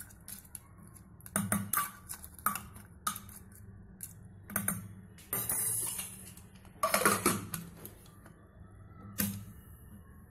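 A metal spoon clinking and scraping against the inside of a pressure cooker as it stirs a wet mix of mince, lentils and water, in irregular knocks. Near the end the cooker's lid is put on with a knock.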